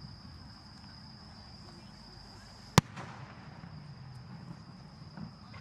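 A single sharp firework bang about halfway through, over a steady high-pitched insect trill.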